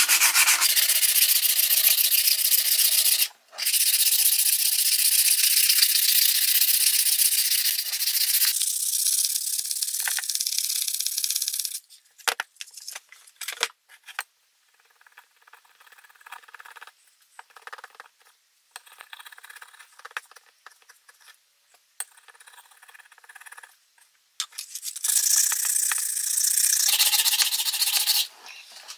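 Sandpaper rubbed by hand, back and forth, along a wooden hatchet handle to strip old paint and scuffs. The rubbing is loud and even for about twelve seconds, with a short break near the start. It gives way to a quieter stretch of scattered small scrapes and clicks as a chisel is worked on the handle, and the sanding comes back near the end.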